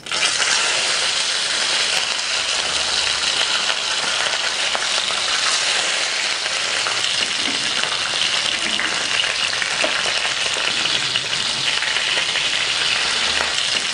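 Raw fish steaks frying in hot oil in a frying pan: a steady, dense sizzle that starts suddenly as the pieces go into the oil.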